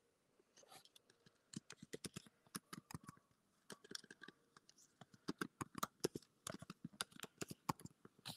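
Faint typing on a computer keyboard: rapid, irregular clicks in runs, starting about half a second in.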